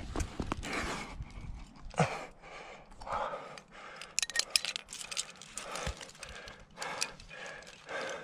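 A rock climber panting hard while clipping a quickdraw to a bolt, with a cluster of sharp metallic carabiner clicks and gear jingle about four to five seconds in.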